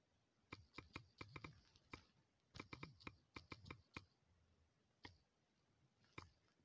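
Quiet taps of fingers typing on a smartphone's on-screen keyboard, picked up by the phone's own microphone: two quick runs of taps, then two single taps near the end.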